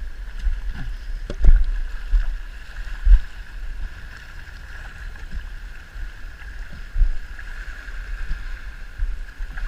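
Irregular deep thumps and rustling close to the microphone, the loudest about a second and a half, three and seven seconds in, over a steady high hum.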